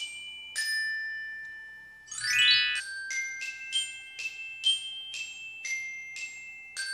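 Outro jingle of bright, bell-like glockenspiel-style notes, each struck and left ringing, with a quick rising run of notes about two seconds in.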